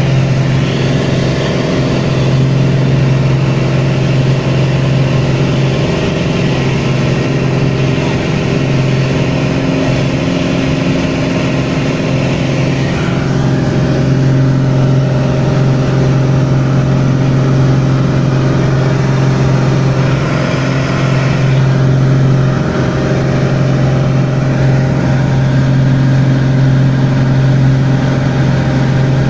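Single piston engine and propeller of a light high-wing aircraft droning steadily, heard from inside the cockpit. The note shifts slightly about halfway through and dips briefly about three quarters of the way through.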